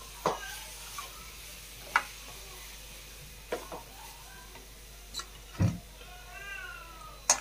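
Wooden spatula stirring thick wheat porridge in a stainless steel bowl, with a few separate knocks and scrapes against the metal, over a faint sizzle from the pot. A cat meows once near the end.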